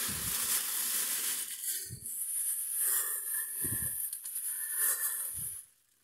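Plastic bag rustling and crinkling as it is handled among food containers on a fridge shelf, with four soft knocks of containers against the shelf. The rustling stops just before the end.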